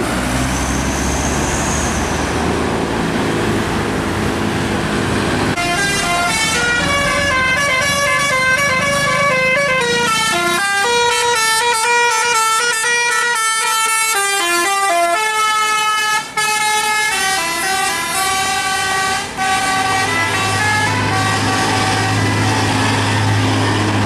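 Tour bus telolet horn, a set of air horns sounding several notes at once, playing a tune in quick stepped pitch changes for about fifteen seconds. It comes after a few seconds of bus engine and tyre noise, and a steady low engine drone follows it near the end.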